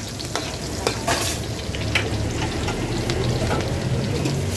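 Rain falling steadily, a dense hiss with scattered clicks and knocks, over a low steady hum.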